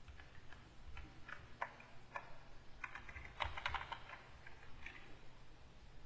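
Computer keyboard keys clicking in scattered presses, with a quick run of keystrokes about three and a half seconds in.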